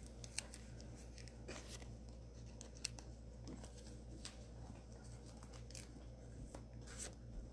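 Faint scattered rustles and light clicks of a trading card being slid into a plastic penny sleeve, over a steady low room hum.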